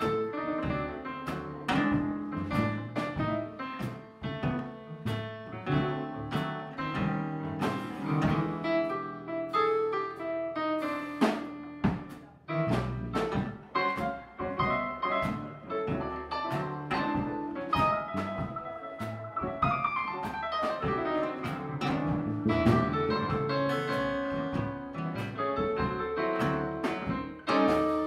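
Blues keyboard solo on a Korg Triton, backed by electric bass and a drum kit.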